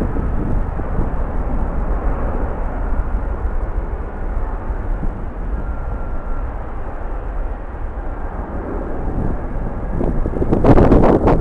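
Steady jet airliner noise across the airport, mixed with a deep wind rumble on the microphone. About ten seconds in, strong gusts buffet the microphone and the sound gets louder and rougher.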